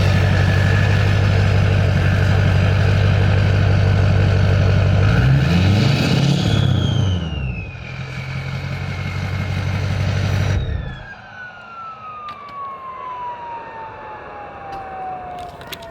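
Ford 6.0 Powerstroke V8 turbo-diesel idling with its KC Stage 3 turbo whistling. About five seconds in there is a brief rev, after which the whistle drops in pitch. Near eleven seconds the engine shuts off and the turbo's whine glides steadily down as it spins down.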